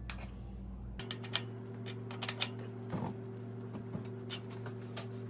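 Scattered light metallic clicks of an open-end wrench on a bicycle's front axle nut as it is tightened, over a steady low hum.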